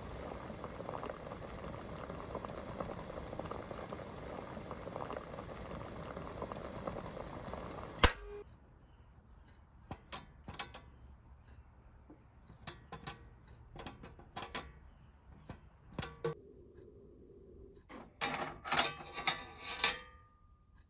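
Water bubbling steadily in a steel pot of metal drawer hardware, cut off by a sharp click about eight seconds in. Then come scattered light clinks as a wooden stick knocks the label holders and pulls against each other and the pot, with a louder burst of clinking near the end.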